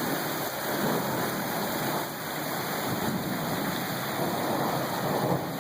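Heavy rain falling steadily in a thunderstorm, a constant hiss of rain.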